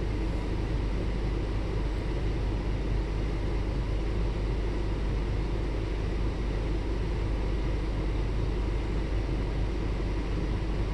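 A domestic cat making a steady, low rumbling sound without a break.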